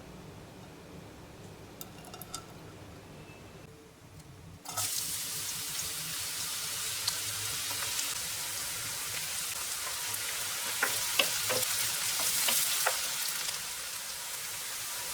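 Food going into hot cooking oil in a pan and sizzling, starting suddenly about five seconds in and running on steadily, with clicks of stirring in the pan near the middle and end.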